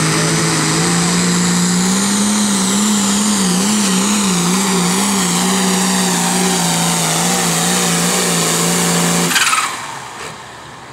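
John Deere 4440 pulling tractor's diesel engine running flat out under load as it drags a weight-transfer sled, its pitch wavering a little. About nine seconds in the engine is throttled back: the note drops away suddenly with a brief falling high whine, marking the end of the pull.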